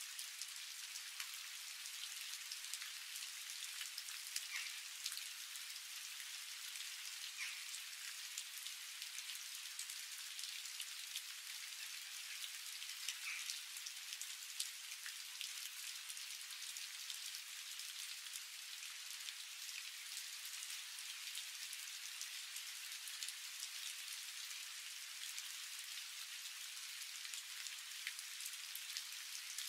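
Chopped onions and curry leaves sizzling in hot oil in a frying pan: a steady hiss with scattered small crackles and pops.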